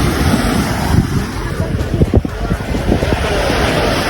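Wind buffeting the microphone over the wash of sea surf on a beach, with uneven low rumbling gusts.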